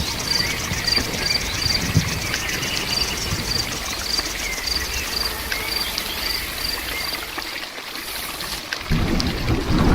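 Steady rain with crickets chirping in an even rhythm, about three chirps a second, and a few faint bird calls. The chirping fades out about three-quarters of the way through, and heavier low rain noise swells in near the end.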